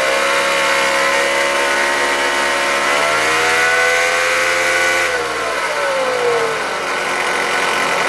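2014 Dodge Avenger 2.4-litre four-cylinder running, with a loud bearing whine of several stacked tones that drops in pitch after about five seconds. The whine comes from the alternator decoupler pulley, whose internal bearing has failed.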